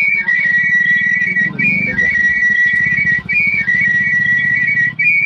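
A loud, high whistle-like tone repeating in a short higher note, then a long lower note, about every second and a half, over a low steady hum.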